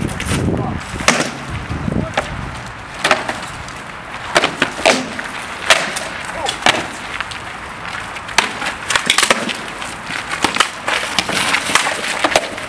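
Rattan swords striking wooden shields and armour in armoured sword-and-shield combat: irregular sharp knocks, with a quick flurry of blows about two-thirds through.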